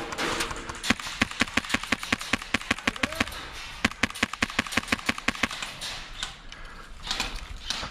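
Airsoft rifle firing rapid strings of shots, about eight to ten a second, in two bursts with a short pause between them, and a few scattered shots after.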